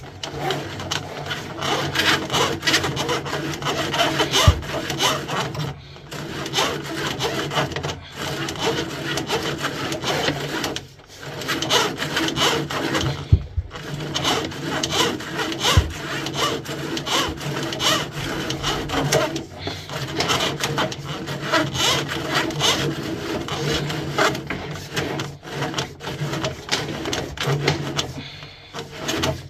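Steel drain-snake cable rasping and scraping as it is fed down a plastic kitchen waste pipe to clear a blockage, with a few short breaks.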